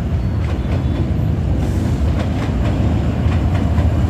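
SE1 passenger train running on the rails: a steady low rumble with faint, irregular clicks.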